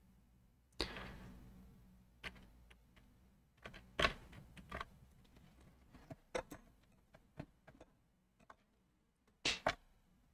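A short burst of freeze spray from an aerosol can about a second in, hissing and fading over about a second, followed by scattered light clicks and taps. The board is being frosted so that the spot over the shorted part thaws first.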